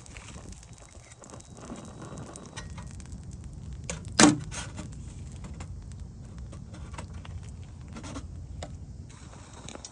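A single sharp knock about four seconds in, over a low steady rumble and scattered faint clicks.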